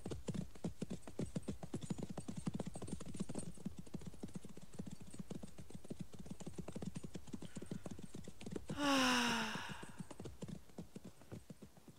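Horse hooves clip-clopping in a steady walking rhythm. About nine seconds in, a horse whinnies once with a falling pitch, and the hoofbeats then fade away.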